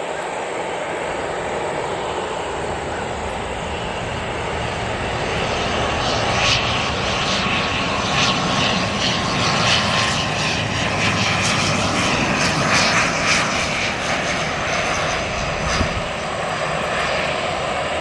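ATR 72-600 turboprop airliner on landing approach passing low, its two Pratt & Whitney PW127-series engines and propellers running with a steady drone. It grows louder about six seconds in, with a pulsing buzz as it passes closest, then eases off slightly near the end.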